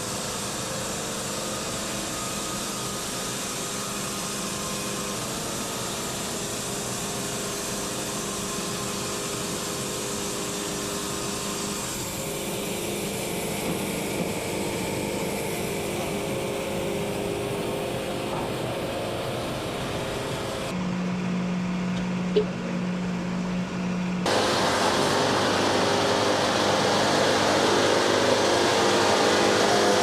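Wood-Mizer LT70 band sawmill running, its diesel engine giving a steady drone that grows louder about 24 seconds in.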